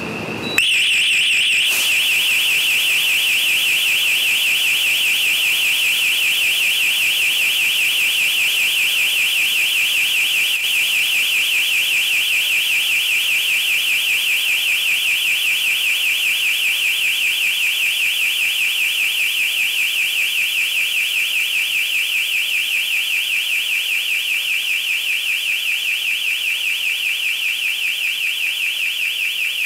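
Electronic intruder alarm sounder going off: a brief steady tone, then a loud, fast-warbling siren that runs on without a break while the security fog system fills the shop.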